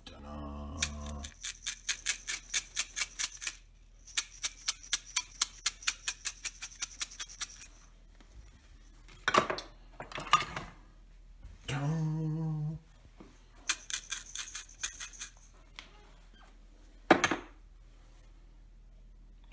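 Rapid, even clicking in three runs of a few seconds each, with a few single sharp knocks between them and a short low hum about two-thirds of the way through.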